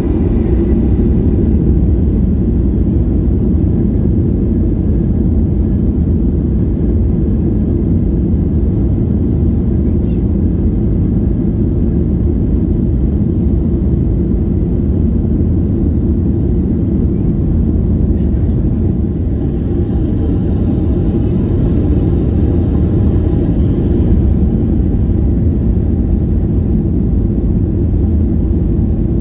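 Steady low cabin rumble inside a Boeing 737-800 taxiing: the CFM56 engines running at low taxi power, heard through the fuselage.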